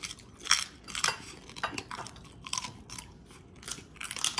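Close-up crunching and chewing of crispy fried pork rinds (chicharon), a run of sharp crunches a couple of times a second, with a fresh bite near the end.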